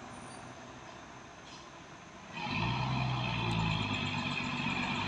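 Light truck's diesel engine labouring up a steep grade. It is faint at first, then about halfway through it suddenly gets much louder and settles into a steady engine drone as the truck pulls up the climb.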